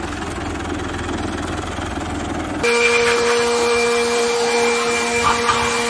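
A New Holland Dabung 85 tractor's diesel engine idles steadily. About two and a half seconds in, the sound changes abruptly to a handheld electric portable blower running: a steady motor whine with rushing air, louder than the engine.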